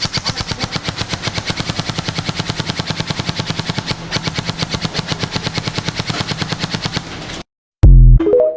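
Airsoft gun firing one long continuous rapid burst, about ten shots a second, that stops abruptly after about seven seconds. Near the end, a short, very loud low sound follows, then a brief pitched sound.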